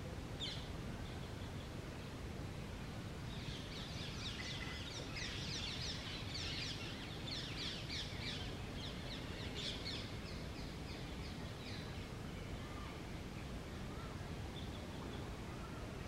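Rose-ringed parakeets calling: one short shrill call at the very start, then from about three seconds in a dense run of rapid, high, harsh squawks that dies away after about eleven seconds, over steady outdoor background noise.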